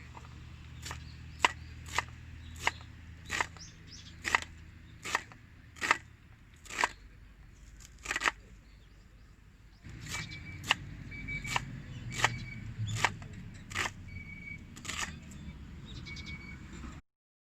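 Knife chopping on a cutting board: sharp knocks at a steady pace of about three every two seconds. Short high chirps join in during the second half.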